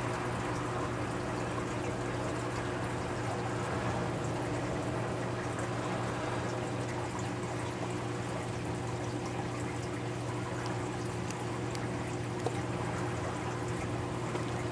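Reef aquarium's filtration running: a steady trickle of moving water over a constant low pump hum, with one small click near the end.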